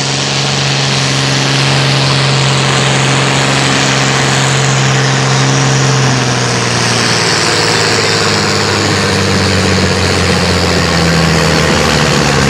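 John Deere 4430 pulling tractor's turbocharged six-cylinder diesel running loud and hard under full load as it pulls the sled down the track. Its steady note dips slightly lower about halfway through as the engine is pulled down.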